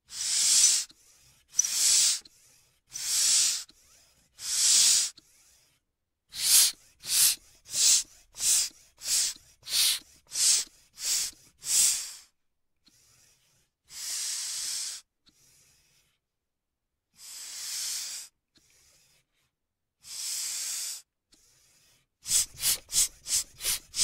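Bicycle pump releasing air in a series of short hisses. It begins with bursts about a second and a half apart, then comes a quicker run of about two a second. Three longer, softer hisses follow with gaps between them, and a fast run of about three a second comes near the end.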